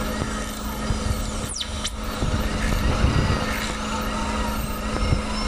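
Dental surgical handpiece running steadily as it cuts at an impacted third molar under irrigation, with a brief falling whistle about one and a half seconds in.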